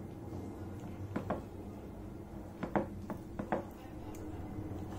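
Close-miked hand eating: fingers mixing rice and curry on a plate, with a few soft, wet clicks in pairs, over a steady low hum.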